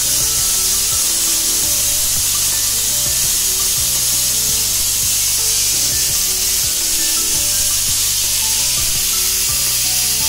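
Aluminium stovetop pressure cooker venting steam through its weight valve: a loud, steady hiss of steam, the sign that the cooker is at full pressure. Background music with a low bass line plays underneath.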